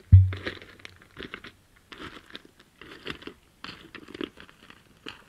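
An emu gives one deep booming thump just after the start, fading over about a second, while emus walk over stony ground with crunching footsteps about every half second.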